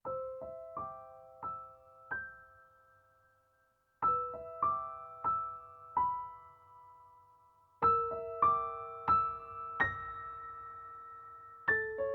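Background piano music: slow, gentle phrases of single struck notes that ring and fade, a new phrase starting about every four seconds.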